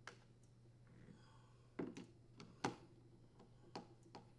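Several faint clicks and taps of a screwdriver bit working in a screw hole of a string trimmer's plastic throttle housing as the screws are tightened. The loudest click comes about two and a half seconds in.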